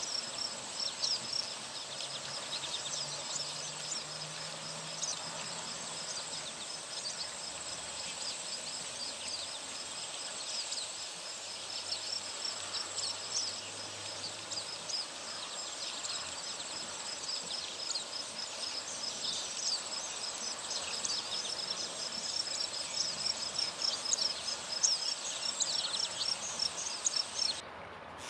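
Insects trilling outdoors: one steady high-pitched tone and a rapid, even pulsing trill, with scattered short bird chirps over them. The insect sound cuts off abruptly near the end.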